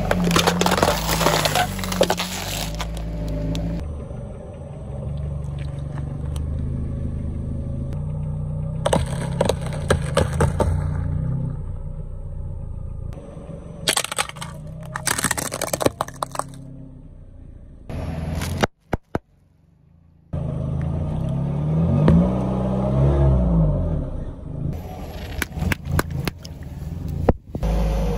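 A car tyre rolling onto and crushing things one after another: crisp tubes, then a plastic water pistol, with crackling, snapping and crunching. The car's engine hums low beneath it, and there is a brief quiet gap about two-thirds through.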